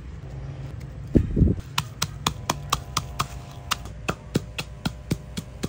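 A pestle pounding coarse rock salt, red chilies and garlic in a mortar. It gives a heavy crunching thump about a second in, then steady sharp knocks about four times a second.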